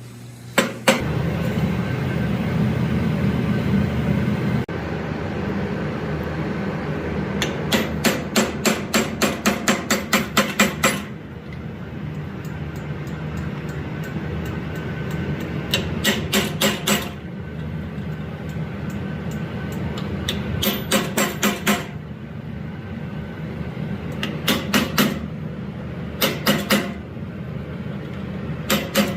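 Blacksmith's hand hammer striking hot steel on an anvil in several quick runs of about four blows a second. Under it runs a steady low roar that starts about a second in.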